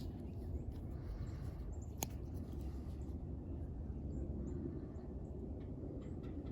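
Outdoor ambience: a steady low rumble with a few faint high chirps, and one sharp click about two seconds in.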